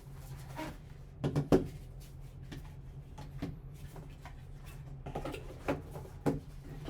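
Hands handling a sealed card box and the hard plastic case of a graded card: scattered clacks and knocks, the loudest cluster about a second and a half in and more near the end, over a steady low hum.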